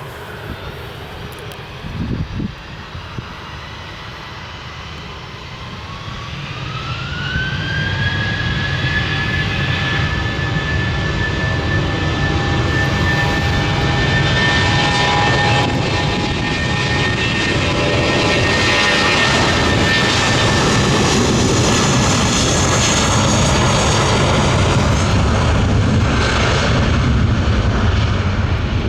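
Airbus A320-232's IAE V2500 turbofan engines spooling up for takeoff. A brief knock comes about two seconds in. About six seconds in, a whine rises and settles into a steady high tone over a growing rumble as the engines reach takeoff thrust.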